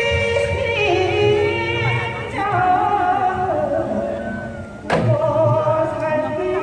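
A woman singing Gyeonggi folk song (gyeonggi minyo) in held, wavering notes that slide between pitches, over traditional Korean instrumental accompaniment. One sharp percussive stroke sounds about five seconds in.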